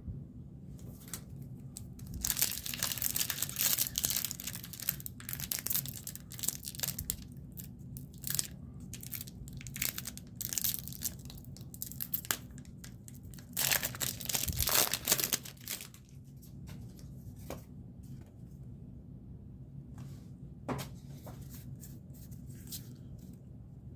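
Pokémon TCG booster pack wrappers being torn open and crinkled by hand in irregular bursts, loudest about two to four seconds in and again around fourteen seconds, then only light, sparse handling.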